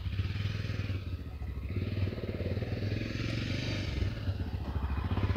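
Small engine running steadily at a constant speed, a fast even pulsing with a deep low hum, starting abruptly about a quarter second before.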